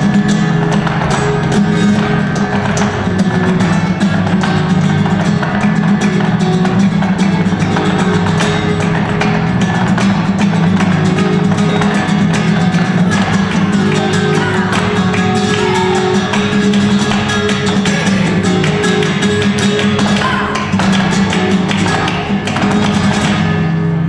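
Live flamenco music: guitar accompaniment with a dense run of sharp percussive taps from the dancers' footwork and hand clapping (palmas).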